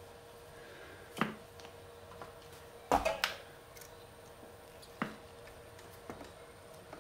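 Hands handling a hose and its brass fitting: a few short, sharp clicks and knocks, the loudest a quick cluster of two or three about three seconds in, over a faint steady hum.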